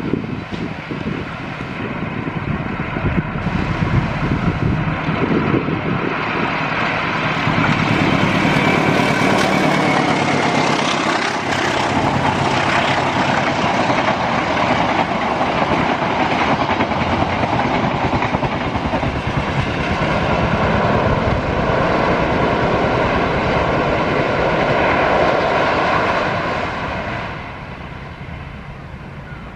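A train passing close by, its wheels and carriages rumbling on the rails; the sound builds over the first few seconds, holds steady, and falls away near the end.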